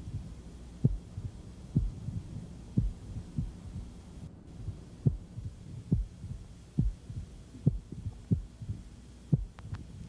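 Heart sounds heard through a stethoscope, from a patient with constrictive pericarditis: low thuds about once a second, each cycle carrying an early diastolic pericardial knock, a filling sound just after the second heart sound. A low steady hum runs underneath.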